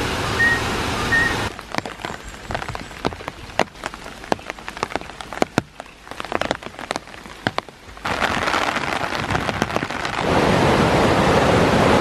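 Rain in a wet rainforest. A steady rush of water gives way about a second and a half in to scattered single raindrops and drips ticking close by, and a steady hiss of rain comes back over the last few seconds, growing louder near the end.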